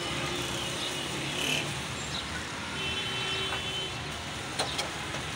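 Steady noise of busy street traffic, with a couple of sharp metal clinks from the stall's steel pots and ladle near the end.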